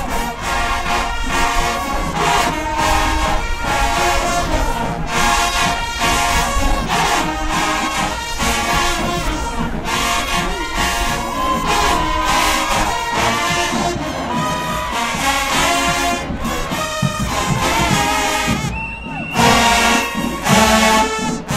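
HBCU marching band playing while marching: a full brass section of trumpets and trombones over a driving drum cadence. About nineteen seconds in there is a brief drop, followed by loud brass hits.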